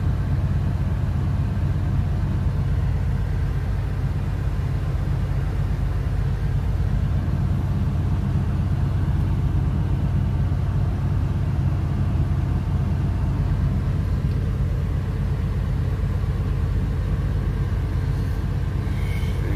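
Semi truck's diesel engine running steadily, a low even rumble heard from inside the cab.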